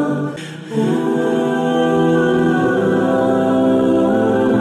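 Background music of long, held notes, with a brief dip in level about half a second in.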